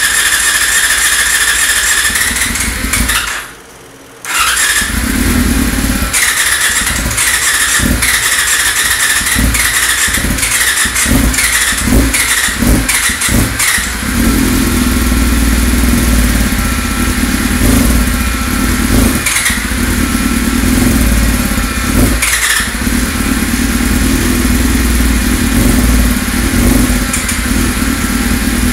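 1999 Yamaha R6's 600 cc inline-four turned over on its electric starter, with a steady whine, on its first start after a rebuild. After a brief pause it cranks again and catches unevenly, the revs surging and falling about once a second. From about halfway it runs steadily, revved briefly twice.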